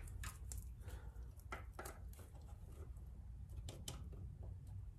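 Irregular light clicks and taps of a caliper being worked into place against the rear axle and chain adjuster on a motorcycle swingarm, to measure the chain adjustment.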